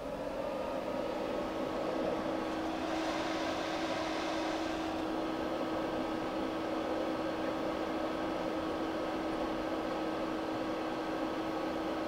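SMART UX80 projector's cooling fan running steadily during its shutdown cool-down, a whirr with a low hum tone. It grows louder about a second in, then holds steady.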